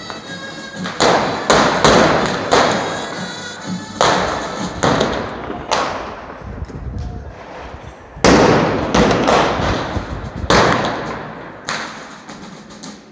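Petards (street firecrackers) going off one after another, about a dozen sharp bangs at irregular intervals, each ringing on in a long echo.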